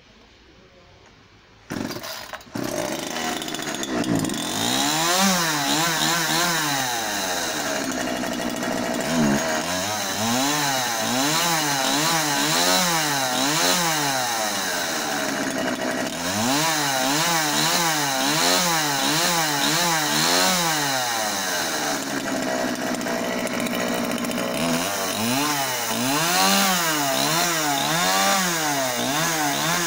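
Homelite CSP 3314 two-stroke chainsaw engine comes in about two seconds in, then is revved up and down over and over, about once a second, with short spells of steady running between the runs of revs.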